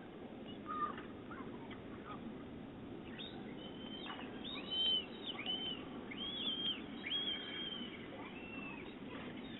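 A bird chirping: a run of short, arched chirps that starts about three seconds in and goes on for several seconds, over a steady low background hum.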